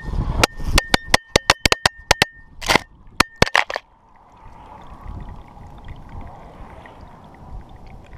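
Clatter from a crash on a road-bike descent: a quick, uneven series of about a dozen sharp knocks over roughly four seconds, some with a brief metallic-sounding ring. The knocks stop abruptly, and only a faint hiss of wind remains.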